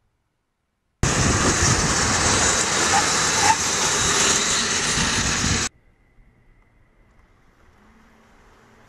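Loud rushing road and wind noise of a car passing at test speed, starting and cutting off abruptly. Only a faint steady high whine remains afterwards.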